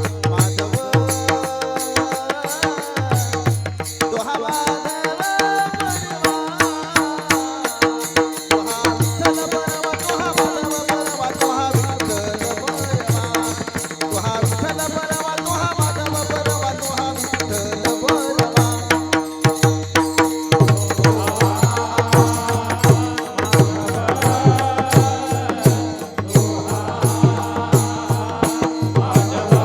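Devotional kirtan music: a sustained melody over a steady drone, with regular drum strokes and small hand cymbals clicking a fast, continuous beat.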